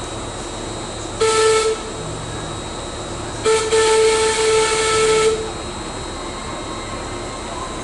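A small diesel-converted tramway locomotive sounds its whistle as it approaches: a short blast, then a longer one about two seconds later, each a pitched tone with a hiss.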